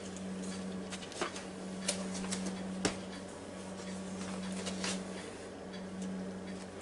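A person eating crispy fried potato snacks: scattered faint crunches and light clicks, over a steady low hum.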